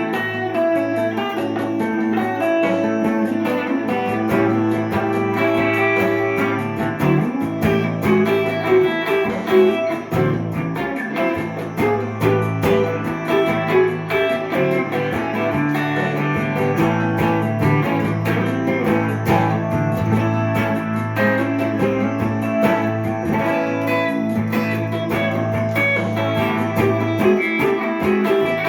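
Gibson ES-339 Custom semi-hollow electric guitar improvising jazzy lines with an Indian flavour, many quick plucked notes over a steady low drone.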